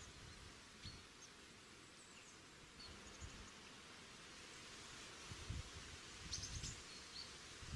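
Faint outdoor ambience: a steady hiss with a few short, high bird chirps scattered through it, and a few low rumbles in the second half.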